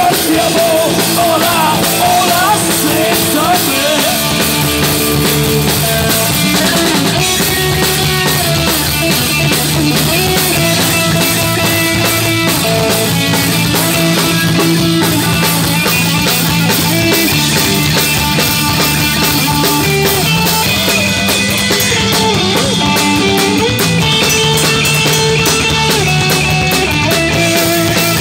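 Live rock band playing an instrumental passage on electric guitar, bass guitar and drum kit, with no singing.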